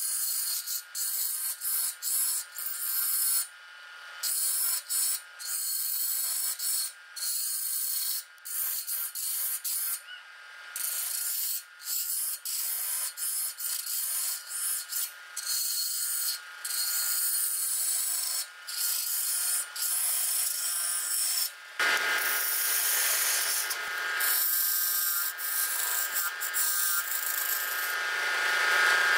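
Lathe tool cutting a spinning wooden cup blank: a high scraping cut broken by many brief pauses as the tool lifts off, over a steady whine. About 22 seconds in the cut turns fuller and more continuous.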